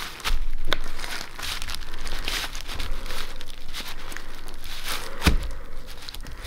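Two-part epoxy repair compound being stirred and scraped around a thin plastic container. The plastic crinkles and rustles, with a couple of sharp knocks, one near the start and one about five seconds in.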